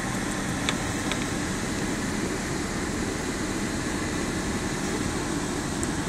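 Steady rush of a car's dashboard air conditioning blowing, over the low rumble of the vehicle, heard inside the car's cabin. A couple of faint clicks about a second in.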